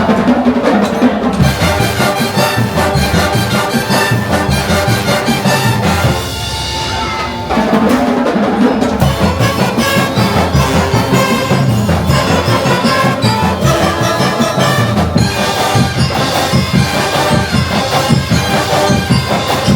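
Drum and bugle corps playing a medley: brass bugles carry the tune over a steady, driving beat of marching drums. The drums drop back briefly about six seconds in, then come back in full.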